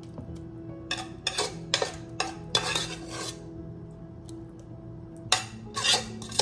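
Metal spoon scraping and clinking against a metal cooking pot as tomato stew is spooned out into a ceramic bowl: a run of short scrapes about a second in, a pause, then more near the end. Background music with steady tones underneath.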